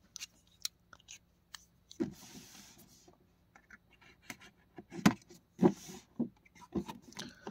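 Faint scattered taps, clicks and light scrapes of hands handling and turning a cardboard collector's box, with brief soft rustles of the cardboard.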